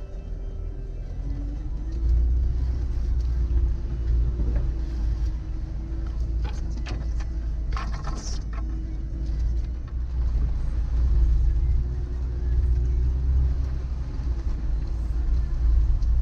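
Suzuki Vitara 1.6 EFI four-cylinder engine running at steady low revs while crawling off-road, with a deep rumble. Around the middle come a few sharp knocks and a short clatter, loudest about eight seconds in.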